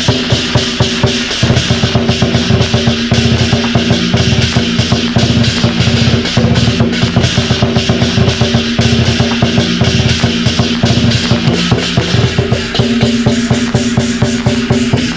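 Lion-dance troupe's big drums and hand cymbals playing a fast, loud, continuous beat, with a held ringing tone running over the strokes.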